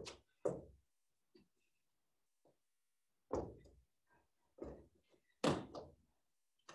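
A string of irregular heavy thuds and knocks, about six, each dying away quickly: dumbbells set down and knocked on the floor during dumbbell woman makers.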